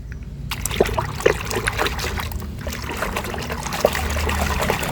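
Water splashing and trickling as a muddy toy car is washed by hand in a container of water, with scattered small knocks of the plastic toy.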